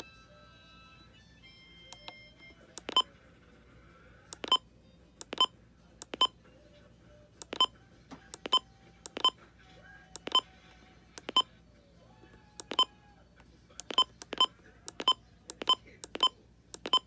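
Midland WR-400 weather radio's button beeps: a short, high electronic beep at each press of the menu arrow key. There are about eighteen in irregular succession, coming faster near the end.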